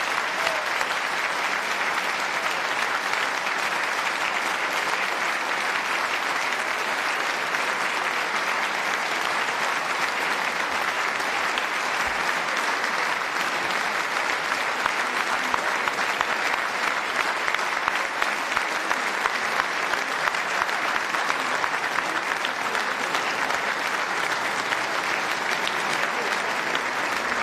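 Sustained applause from a large audience, many people clapping at once at a steady level without a break.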